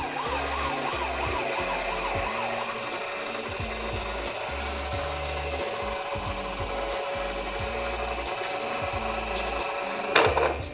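Toy ambulance's electronic siren warbling fast for the first few seconds. Then comes a steady rubbing rattle of small wheels rolling down a slope, and a loud clatter near the end.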